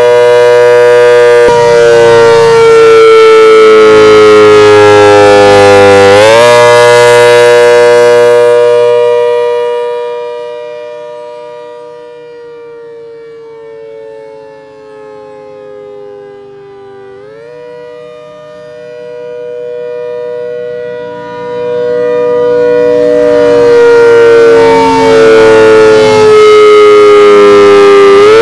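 ACA Hurricane outdoor warning siren sounding a loud chord of tones that slowly falls in pitch and snaps back up about every eleven seconds. It fades well down in the middle and swells loud again.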